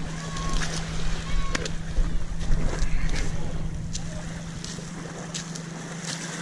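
Wind buffeting the microphone, heaviest in the first few seconds and easing after, over a steady low hum, with scattered small clicks.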